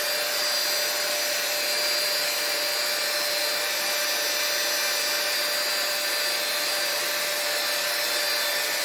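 Hot air hair styler (blow-dryer brush) running steadily, a constant rush of air with a steady motor whine, as it is used to curl hair.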